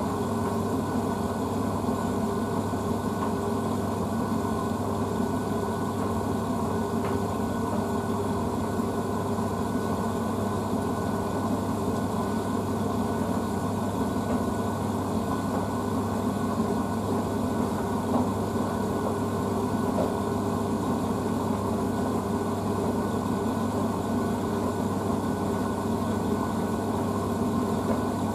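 Blomberg WNF9448 front-loading washing machine running through its first rinse: a steady hum and rush that does not change.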